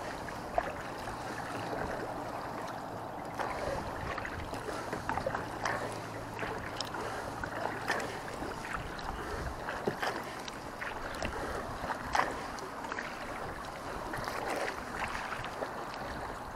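Kayak paddling on choppy lake water: paddle blades dipping and splashing, with small waves lapping against the hull and scattered drips throughout.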